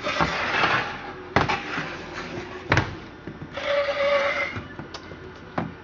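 Handling noise as a Stihl 075 chainsaw is set down and turned over on a workbench. There is a rustling scrape at first, then two sharp knocks of the saw against the bench, a longer scrape about four seconds in, and a few small clicks near the end.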